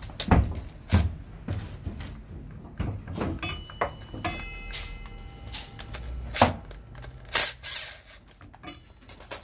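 Metal knocks and clicks of a motorcycle brake caliper and hand tools being handled, then a short burst from a cordless impact wrench driving in a front brake caliper mounting bolt about seven and a half seconds in.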